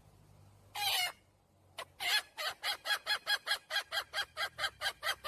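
Hen calling to a rooster: one short call about a second in, then a fast, even run of loud clucking notes, about five a second.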